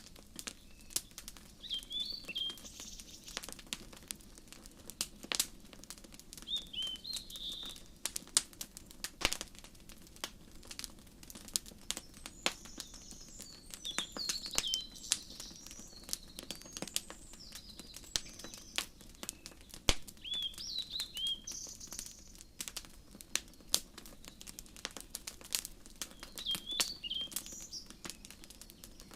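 Wood fire crackling with frequent sharp pops, mixed with small birds chirping in short twittering phrases every few seconds, busiest in the middle.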